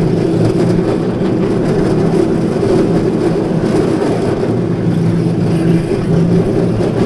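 Family roller coaster train rolling along its track, a steady rumble of the wheels with a humming tone that comes and goes.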